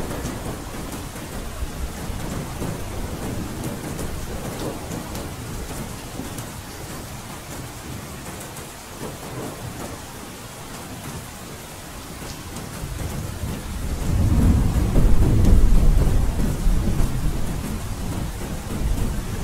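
Steady rain falling, with a low roll of thunder that builds about two-thirds of the way through and stays loudest for a few seconds before easing.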